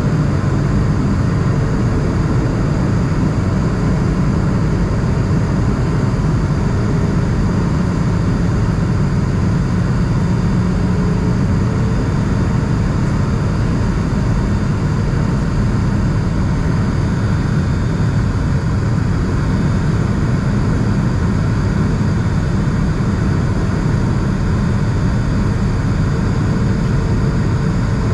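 Steady cabin noise inside an Airbus A220 in flight, heaviest in the low end, from its Pratt & Whitney PW1500G geared turbofan engines and the air rushing past the fuselage.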